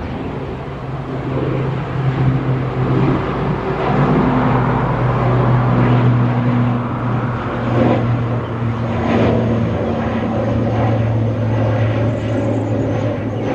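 Boeing 787-8 Dreamliner's jet engines at takeoff power: a loud, steady rumble with low droning tones.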